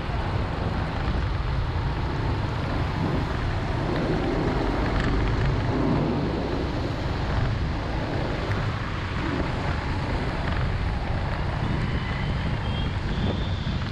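Steady vehicle and traffic noise while driving, with wind buffeting the microphone.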